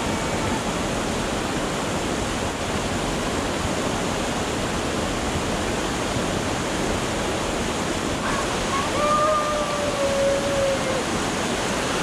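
Small cascading waterfall: a steady rush of falling water. A faint, short pitched call is heard briefly about nine seconds in.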